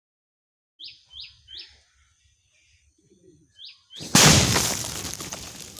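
A few short bird chirps, then about four seconds in a handmade coconut-shell firework goes off with a sudden loud blast that dies away over about a second and a half.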